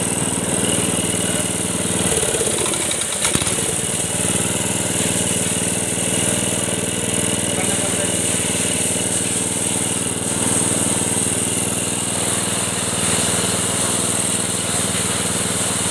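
A power trowel's small gasoline engine running at a steady speed, with a brief change in its note about two seconds in.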